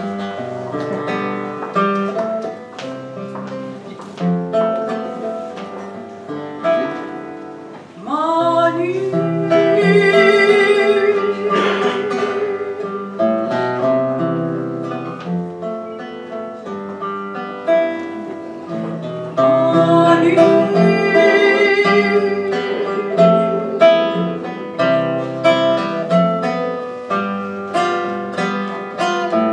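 Classical nylon-string guitar played fingerstyle, with a woman singing held notes with vibrato over it, her voice coming in about eight seconds in and again about twenty seconds in.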